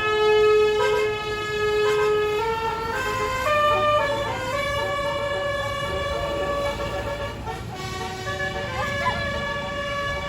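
Bus telolet 'basuri' multi-trumpet air horn playing a melody. It opens with a long held note, then moves through held notes that step up and down in pitch, over a low rumble underneath.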